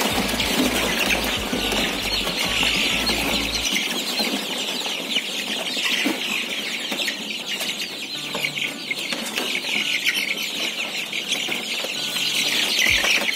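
A crowded brooder of three-week-old cockerel chicks peeping: a dense, unbroken chorus of short, high, falling peeps. The flock is nervous, startled by the keeper's presence.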